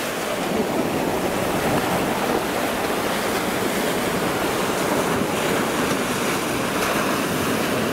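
Small sea waves breaking and washing in over sand: a steady rush of surf.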